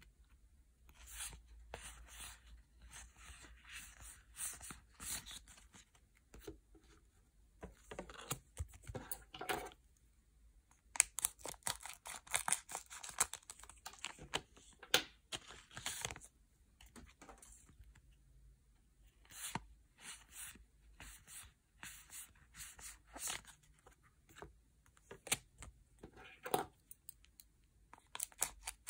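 Foil booster-pack wrappers being torn open and crinkled by hand, in irregular bursts of crackling and sharp clicks with short pauses between.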